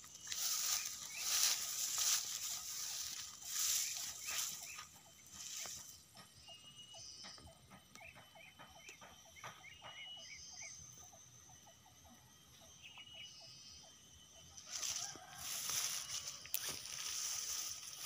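Chicken clucking in a quick run of short calls in the quieter middle, with bouts of rustling noise near the start and again near the end.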